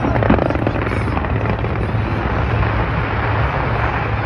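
Massed aerial fireworks going off: a dense, continuous low rumble of many bursts with crackling over it, a few sharper cracks in the first second.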